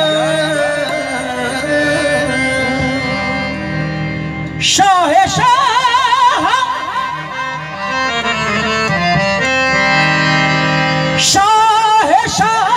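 Qawwali: male voices singing a long, ornamented, wavering line over sustained harmonium chords. The lead voice comes in strongly about five seconds in and again near the end.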